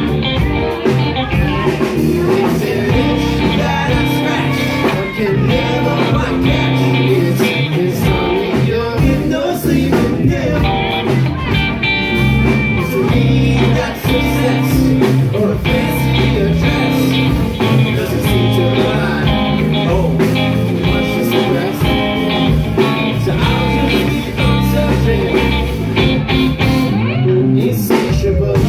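Rock band playing live: electric guitars, bass guitar and drum kit.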